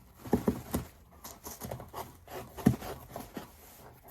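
A parcel being opened and handled: a series of irregular knocks and clicks with rustling of cardboard and packing material, one sharper knock near the middle.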